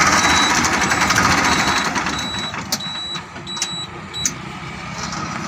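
Ford 3600 tractor engine running steadily. Short high-pitched beeps come on and off several times, and a few sharp clicks sound in the second half.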